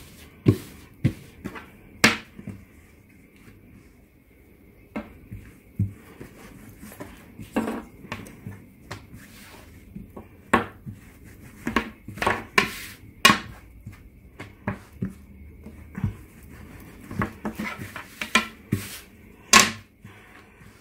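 Long thin wooden rolling pin (oklava) rolling and knocking on a tabletop as thin dough is wound round it and rolled out: irregular taps and clacks, some sharp and loud, with soft rubbing of hands on dough between them.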